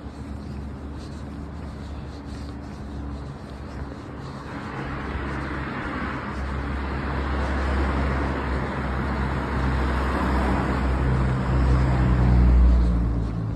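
A motor vehicle driving past on the road: its tyre and engine noise swells from about four seconds in over a low steady rumble, loudest near the end.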